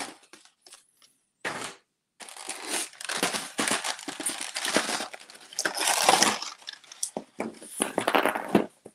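Clear plastic action-figure packaging crinkling and crackling as it is handled and pulled apart: a stiff plastic tray and a thin plastic bag being worked off the figure. There is a short burst about a second and a half in, then crackling with many small clicks almost throughout, loudest near the end.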